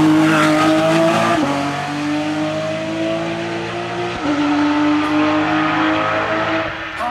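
Porsche 997 GT3 Cup's naturally aspirated flat-six accelerating hard away up a hill, the engine note climbing in pitch through each gear, with upshifts about a second and a half in and again about four seconds in.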